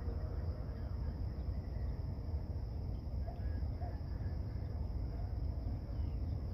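Outdoor ambience: a steady low rumble with a thin, steady insect drone high above it and a few short bird chirps.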